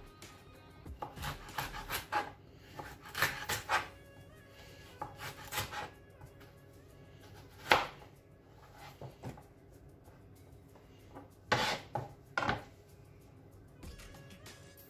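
Kitchen knife cutting carrots into sticks on a cutting board: irregular clusters of sharp knocks as the blade hits the board, with pauses between cuts. Soft background music underneath.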